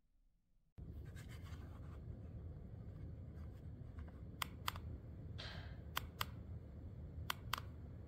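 Steady low hum of a small low-profile ceiling fan running, with three pairs of sharp clicks about a second and a half apart and a brief hiss between the first and second pair.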